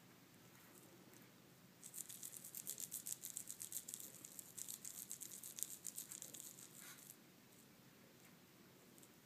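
Cat wand toy rattling as it is jiggled on its string: a fast run of sharp rattling clicks that starts about two seconds in and stops after about five seconds.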